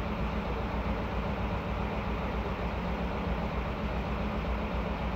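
Heavy diesel engine of an asphalt patching truck idling with a steady low hum.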